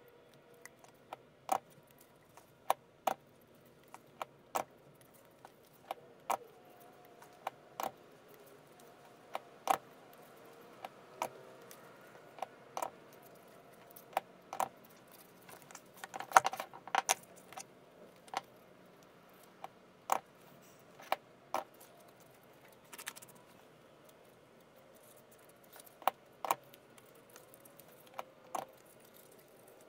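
Scattered sharp clicks and light taps, about one every second or two, with a quick cluster of them about halfway through, from stiff handmade craft petals being handled and bent into place on a large flower.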